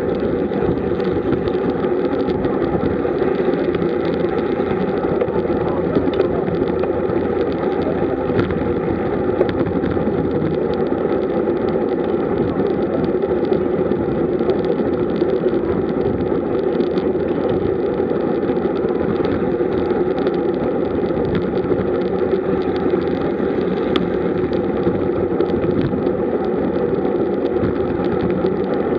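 Steady rush of wind on the microphone and road noise from a road bicycle riding at speed in a group, with a constant low hum underneath.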